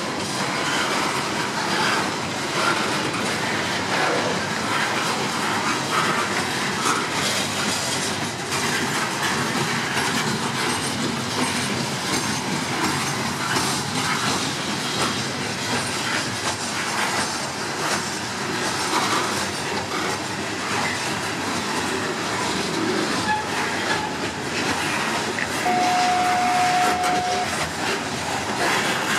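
Freight cars of a Norfolk Southern coal train rolling past, with a steady rumble of wheels and rapid clicking over the rail joints. Near the end a single steady tone sounds for under two seconds.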